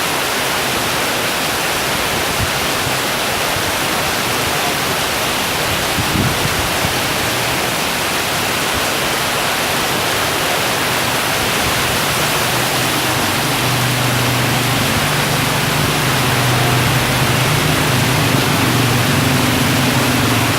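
Heavy rain with wind: a dense, steady hiss of downpour. A low steady hum joins underneath a little past halfway and grows slightly toward the end.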